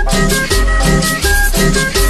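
Cumbia sonidera music: a shaker keeping a steady, even beat over pulsing bass notes and a repeating melody.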